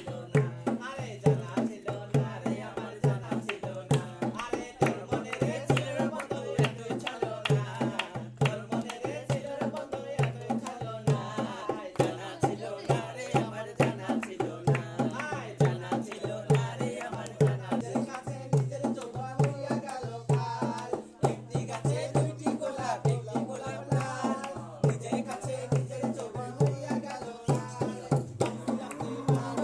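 Dholak, a two-headed barrel hand drum, played in a steady folk rhythm, with a singing voice and hand-clapping along with it.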